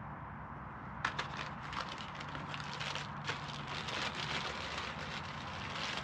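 Paper seed packet crinkling and rustling as it is handled, a run of irregular small crackles starting about a second in.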